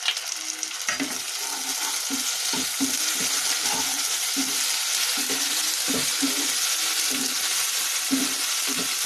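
Chopped onions and ginger-garlic paste sizzling in hot oil in a nonstick kadhai, with a spatula stirring and scraping the pan in short repeated strokes.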